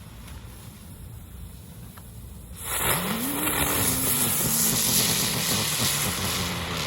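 Ground bloom flower firework catching about three seconds in and spinning on the ground: a loud, steady spraying hiss with a low whirring tone that rises and then slowly drops.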